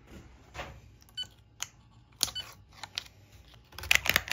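Clear protective plastic film crinkling and crackling as it is peeled off a laser engraver's control-panel touchscreen. A few scattered light clicks come first, and the crackling is thickest near the end.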